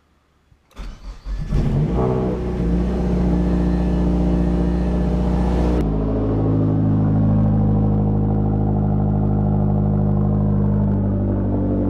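Mazdaspeed6's built 2.3-litre turbocharged four-cylinder cranking and catching about a second in, flaring up and then settling into a steady fast idle. It is a cold start after sitting overnight, run to bring the engine up to temperature for a warm compression test.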